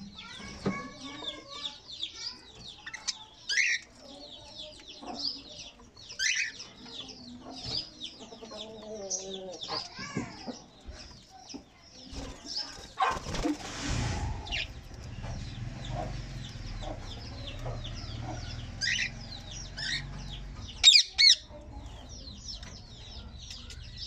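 Mixed flock of budgerigars and cockatiels chirping and chattering, with a brief flutter of wings about halfway through and two sharp, louder calls near the end.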